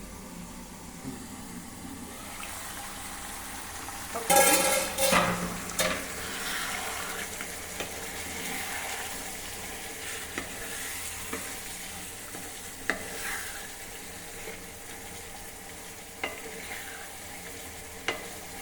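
Chicken sizzling in a pan over the flame, with a loud clatter of metal with a ringing tone about four seconds in and a few sharp pops afterward.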